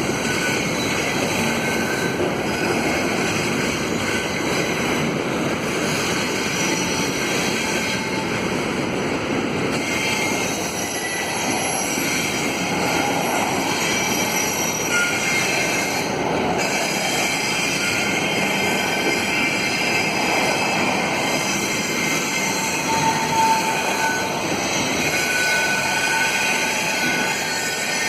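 Freight cars of a double-stack container train rolling around a curve, their steel wheels squealing against the rails in several shifting high tones over a steady rumble.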